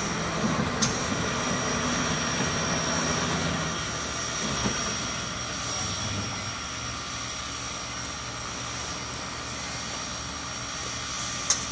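Steady mechanical drone with a thin high whine held throughout, from steam locomotive Southern Railway 4501, a 2-8-2 Mikado, and the turntable slowly turning it. A sharp click comes about a second in and another near the end.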